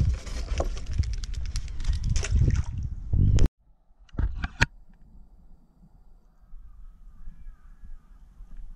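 Scraping and rustling of a small swimming crab being handled in a polystyrene box, over a loud low rumble. It cuts off suddenly about three and a half seconds in. A few sharp clicks follow, then only a faint outdoor background.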